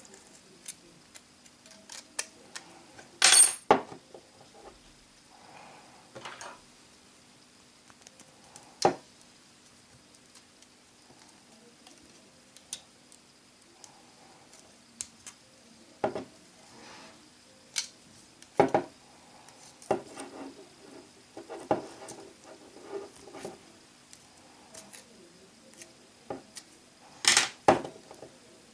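Small metal repair tools clicking and scraping against an iPhone 4 and the work surface while the glued screen is pried loose. The sound comes as scattered sharp clicks and short scrapes, loudest about three seconds in and again near the end.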